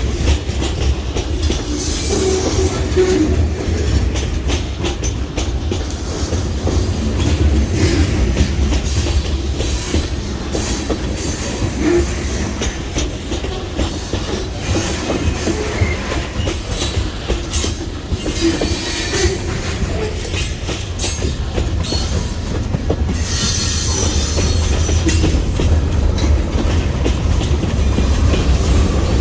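Kiamichi Railroad freight train rolling by: a steady low rumble with frequent clicks of wheels over rail joints and brief high wheel squeal now and then.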